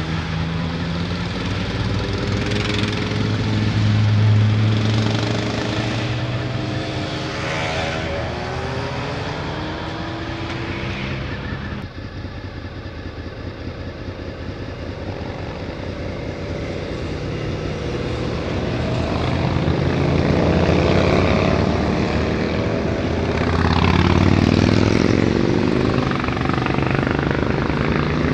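A convoy of motorcycles riding past one after another, each engine rising and falling in pitch as it goes by, over a steady low engine hum. The sound dips briefly about twelve seconds in, then grows louder as more bikes pass near the end.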